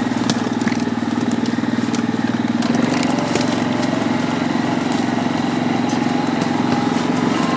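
Yamaha Grizzly 700 ATV's single-cylinder four-stroke engine running steadily under way at an even, moderate speed, with faint crackles over it.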